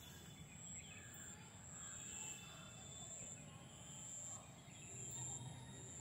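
Faint outdoor field ambience: a high, thin insect buzz that breaks off and starts again every second or so, with faint bird chirps.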